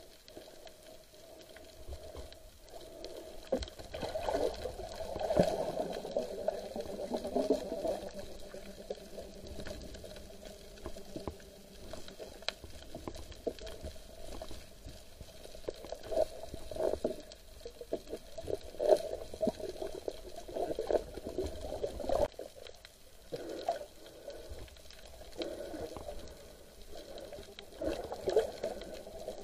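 Underwater water noise heard through a submerged camera: irregular bubbling and gurgling in uneven clusters, over a faint steady hum.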